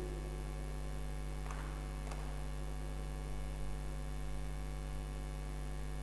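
Steady low electrical mains hum.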